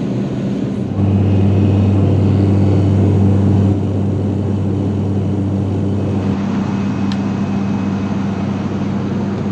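Cabin drone of an ATR 42 turboprop in cruise: a steady low propeller hum with a deeper tone beneath it. The drone steps louder about a second in and eases back near four seconds in, with a small click about seven seconds in.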